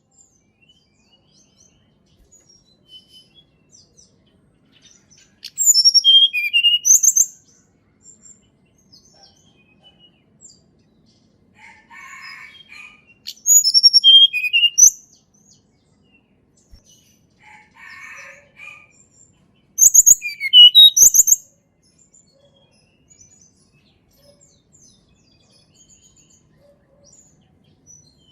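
Tledekan gunung singing: three loud, high-pitched song phrases about seven seconds apart, each a quick run of notes falling in pitch, with faint soft chips between them.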